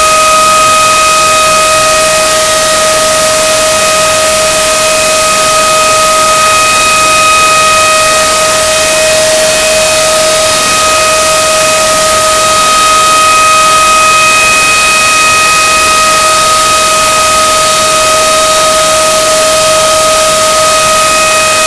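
Screaming-chicken sound effect, heavily distorted and very loud, held as one unbroken note at a steady pitch with a harsh hiss over it.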